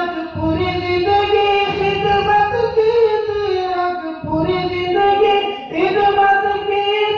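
A man chanting a Saraiki poem (nazm) in a sung, melodic recitation, holding long drawn-out notes with short breath pauses between phrases.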